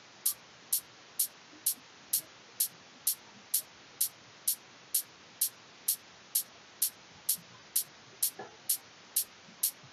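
Electronic open hi-hat sample looping at 128 BPM, one short bright hit on every beat, heard only in the high treble as an EQ low shelf strips out its lower part. A steady faint hiss of noise lies underneath.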